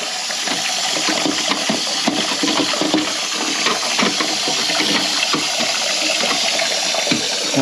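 Toilet cistern refilling after a flush: water runs in steadily through the float-operated inlet valve. Light clicks and knocks of plastic come from the new siphon being twisted into place.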